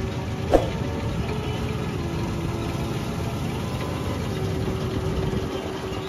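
Kartar 4000 combine harvester running steadily as it cuts wheat, a constant engine hum with a whine that comes and goes, and one sharp knock about half a second in.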